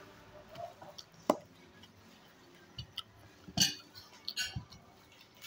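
Plates and cutlery clinking and knocking on a table as food is handled during a meal. A few scattered sharp clinks, the loudest about three and a half seconds in, with a quick cluster just after.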